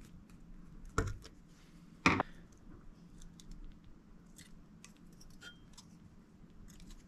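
Small metal chainsaw parts and pliers being handled on a wooden workbench: two sharp knocks about a second apart near the start, then light clicks and rattles.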